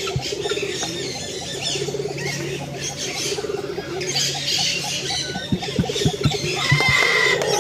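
Aviary birds chirping and calling over a fast, even run of low pulsed calls and a steady low hum, with a few short knocks about two thirds of the way through.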